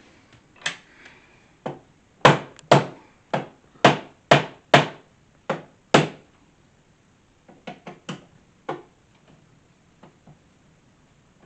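A screwdriver knocking two through pins home into a wooden storage box, a series of sharp knocks on wood, about two a second, with a handful of lighter taps after. The pins were not fully seated and are being driven in snug.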